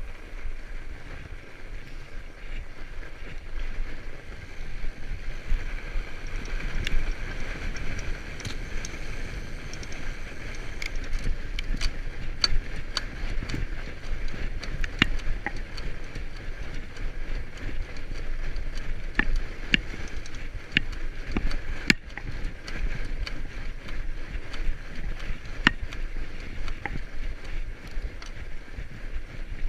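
Fat bike riding over a packed-snow trail: the wide tyres rolling and crunching on the snow in a steady rumbling hiss, with scattered sharp ticks and rattles from the bike.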